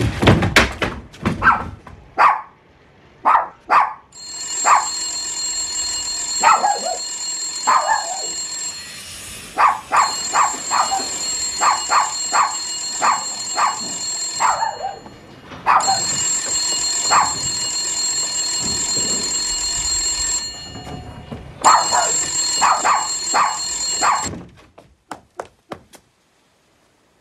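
An electric telephone bell rings in three long rings, the last one shortest, while a small dog barks over and over in short, sharp barks. It opens with a couple of heavy low thumps.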